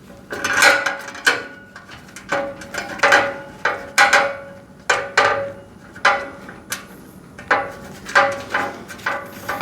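Metal storage-rack parts knocking and clinking together as they are fitted and a screw is threaded in: irregular sharp knocks, about two a second, each with a short metallic ring.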